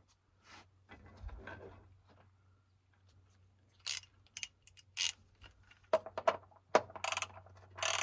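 Irregular metallic clinks and scrapes of a socket and wrench on the oil pan drain plug as it is refitted, getting busier and louder in the second half, over a faint steady low hum.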